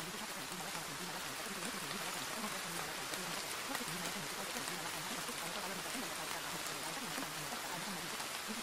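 Steady hiss of recorded rain-like falling water, even and unbroken, laid as the masking background of a subliminal audio track.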